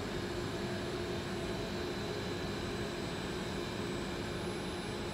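A 3-ply flat mask-making machine running: a steady mechanical hum and whir with faint constant tones over it.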